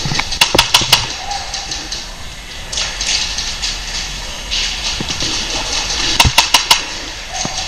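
Airsoft gun firing two quick strings of four shots, one about half a second in and another near the end, over a steady rustling hiss.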